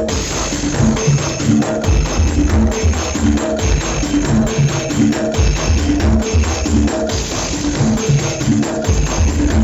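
Loud dance music played through a big sound system, with a heavy, repeating bass beat and percussion over it.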